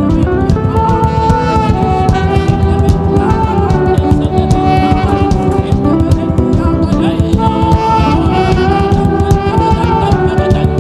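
Worship music: a held, gliding melody line over a dense, busy accompaniment.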